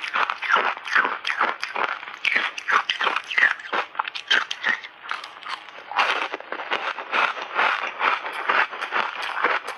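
Ice chips coated in matcha and milk powder being bitten and chewed, a dense run of crisp crunches several a second with no let-up.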